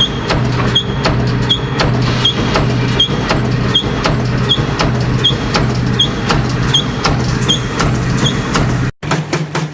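Industrial production machine running in a steady repeating cycle about every three-quarters of a second, each cycle bringing several clicks and a short high chirp over a constant hum. Near the end it cuts off abruptly and a different machine starts up with a faster clatter of about five strikes a second.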